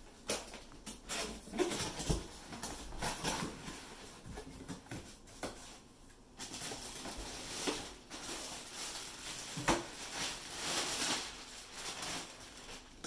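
A cardboard box being opened and unpacked by hand: knocks and scrapes of cardboard flaps, then a longer rustle of plastic wrapping being pulled off, with a few sharp knocks as the steel-framed folding chair is lifted out.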